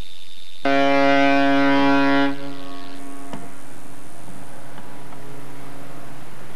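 A ship's horn blowing one long, deep blast: loud for about a second and a half, then a fainter steady tone that holds for several seconds more.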